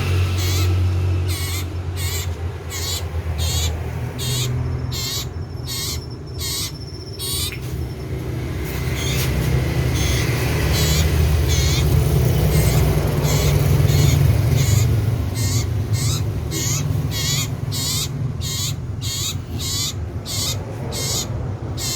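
Iora (cipoh) singing loudly: a long run of short, sharp high notes repeated about twice a second, with a brief thinning about eight to ten seconds in. A steady low rumble runs underneath.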